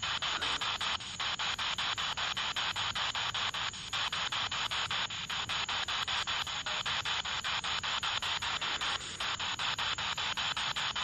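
Spirit Box radio scanner sweeping through stations: steady radio static chopped into rapid steps several times a second as it jumps from station to station, with brief fragments breaking through. One of these fragments is taken as a spirit answering "no".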